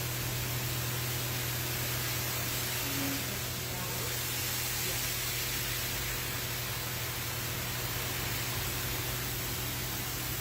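Automatic car wash running: a steady hiss of water spray over a constant low machine hum.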